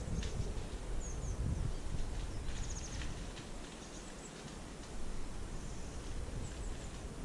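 Footsteps scuffing and rustling through dry grass and leaf litter, with a low rumble of wind on the microphone. A few faint, high bird chirps come through now and then.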